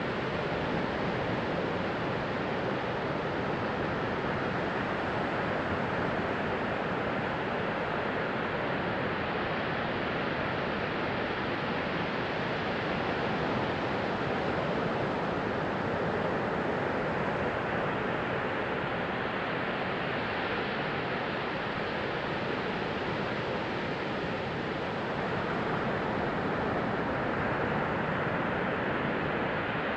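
Sea waves washing on a beach: a steady rush of surf that swells a little twice in the second half.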